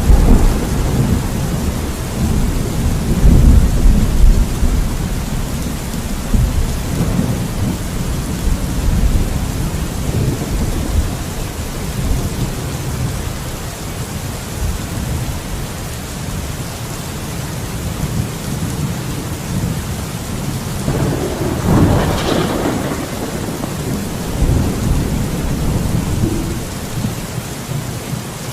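Steady rain with thunder rumbling low in the first few seconds. A louder clap of thunder comes about three quarters of the way through, then rolls away.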